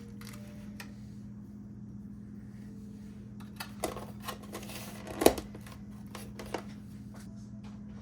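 Light clicks and knocks of utensils and food containers being handled, the sharpest about five seconds in, over a steady low hum.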